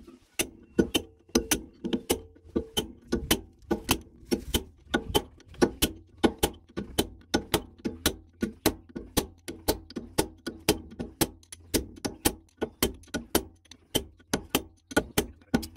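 Steady hammering on metal, about two sharp blows a second, each ringing briefly. It is the large bearing being driven down onto the pinion shaft of a Hyundai R215L excavator's swing reduction gearbox, still going down and not yet seated.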